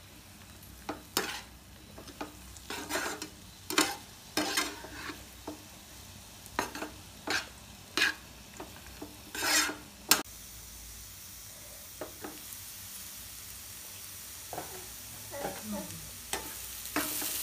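Spatula stirring and scraping grated beetroot and carrot in a nonstick frying pan, with the vegetables sizzling in freshly added oil. Short scraping strokes come through about the first ten seconds. Then a steady sizzle holds, with a few more strokes near the end.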